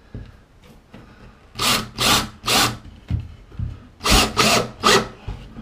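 Drywall screw being driven into a wooden furring strip in two runs of short grinding bursts, three and then about four.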